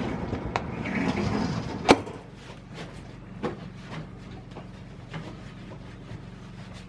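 A metal roller shutter door is hauled up, rattling, with a sharp clank about two seconds in. After that come faint small knocks and handling sounds as a helmet is wiped with a cloth, over a low steady hum.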